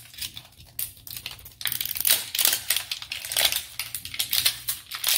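Crinkly plastic wrapping being peeled off an L.O.L. Surprise ball: a few faint rustles at first, then dense crackling from about a second and a half in.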